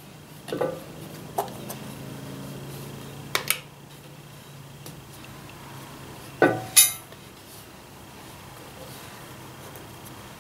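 A handful of light metallic clinks and taps, the loudest pair just past the middle, as hands work a thin gasket down over the wheel studs of a 1944 Ford 2N tractor's axle hub inside the brake drum.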